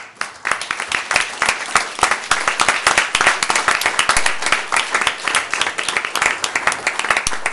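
Audience applauding: many hands clapping in a dense, steady run that starts suddenly.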